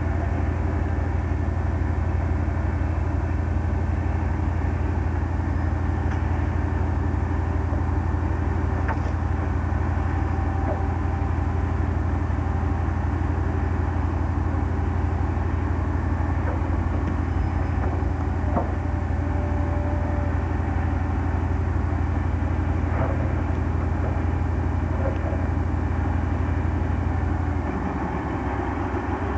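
Heavy diesel engine of an armoured recovery vehicle running steadily at idle, a deep hum whose note changes near the end, with a few faint metallic clinks over it.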